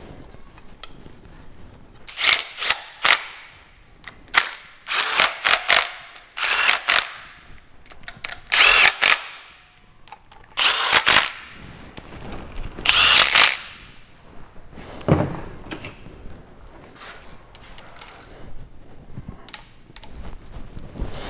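Cordless power ratchet running water pump bolts into an engine in a string of short bursts, each under a second, beginning about two seconds in, some winding down as the trigger is released; quieter clicks of tool and parts follow.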